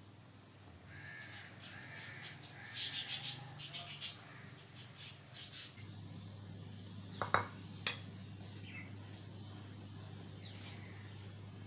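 Birds calling in clusters of short, harsh calls for the first several seconds. Then two light knocks, about seven and eight seconds in, as glassware is set down on a counter.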